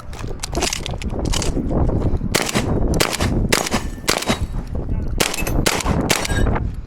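A string of shotgun shots, about eight or nine, fired at uneven intervals over a few seconds, with a steady low rumble of wind and movement under them.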